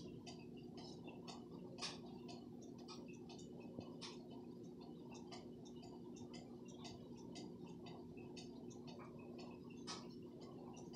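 Quiet indoor background: a steady low hum with many faint, irregular clicks and ticks, a few of them louder, about two, four and ten seconds in.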